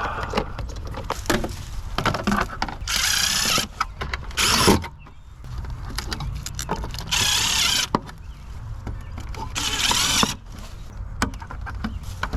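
Old copper telephone wire being pulled and handled: four rough scraping bursts, each under a second, with scattered clicks and knocks between them.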